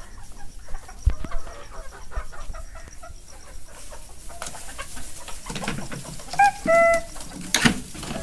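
Sonali chickens clucking, many short calls overlapping, with scattered knocks. Near the end come two short clear pitched calls and a sharp knock.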